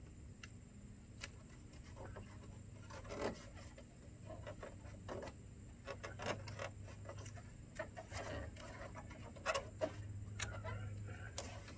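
Painter's tape being pressed and smoothed by hand along the edge of a truck grille: faint, scattered crinkles and rubs over a steady low hum.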